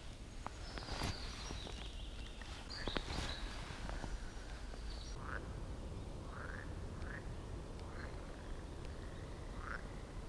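Frogs croaking at a pond: short rising calls, about one a second, through the second half. A few sharp clicks in the first half.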